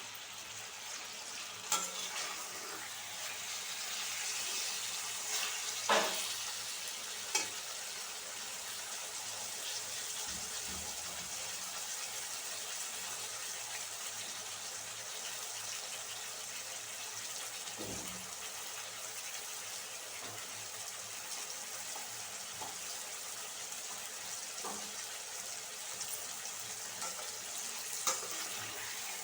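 Chicken pieces sizzling steadily in hot oil with salt and turmeric in a kadai while being stirred, with a few sharp clinks of the spatula against the pan.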